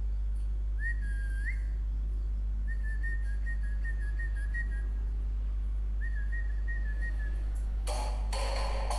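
Someone whistling three drawn-out notes at about the same high pitch; the middle note is the longest and wavers. A steady low hum runs underneath. A burst of rustling noise comes in near the end.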